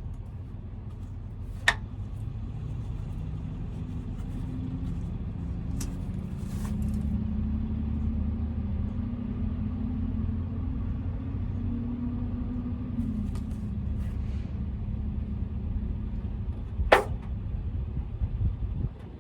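Low engine rumble, swelling for a few seconds in the middle, with a few sharp clicks.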